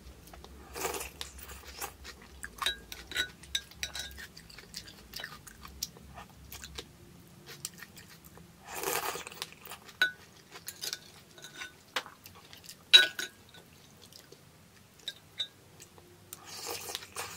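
Close-miked eating of thick bánh canh noodle soup: three slurps of noodles, near the start, in the middle and near the end, with wet chewing and short sharp mouth clicks between them, the sharpest about 13 seconds in.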